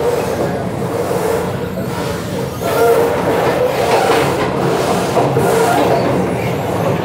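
Passenger train coach running along the track, heard from inside: a steady rumble and rattle of wheels on rails, louder from about three seconds in.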